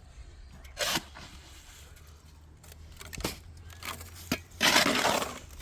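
Building-site work noises: a short scrape about a second in, a few sharp knocks, then a louder scraping rush near the end, over a steady low hum.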